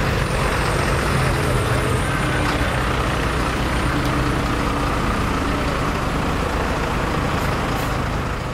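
Diesel engine of a fire-brigade truck, such as a MAN turntable ladder truck, idling steadily.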